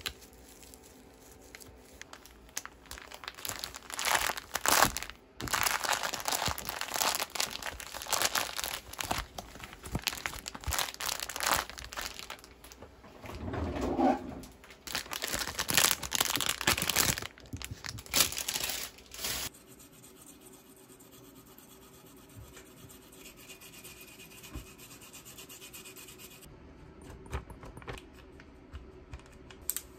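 A plastic zip-top freezer bag crinkling and rustling in quick bursts as it is handled and filled. The crinkling stops about two-thirds of the way in.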